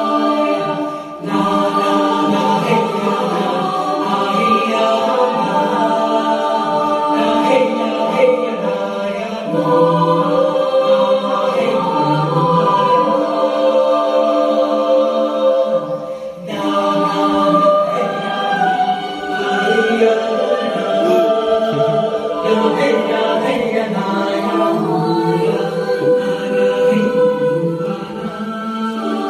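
A choir of voices singing long held notes in slow chords, with short breaks about a second in and about sixteen seconds in.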